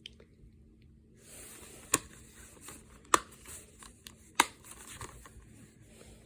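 Plastic movie cases being handled: rustling and sliding, with three sharp plastic clicks about a second and a quarter apart, such as a case snapping open or shut.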